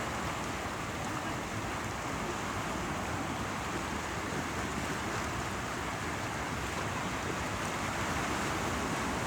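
Sea waves and running water making a steady rushing wash.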